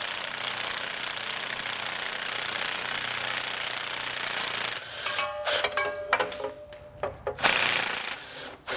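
Cordless impact wrench hammering steadily for about five seconds, loosening a 13 mm bolt holding an underbody shield, then several short bursts with pauses between them.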